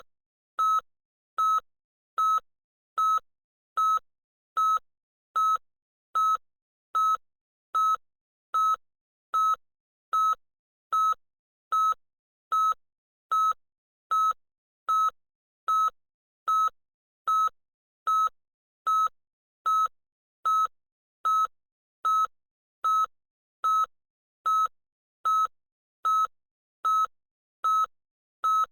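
Loud electronic beeper giving the same short, high-pitched beep over and over at an even pace, about four beeps every three seconds, with silence between beeps.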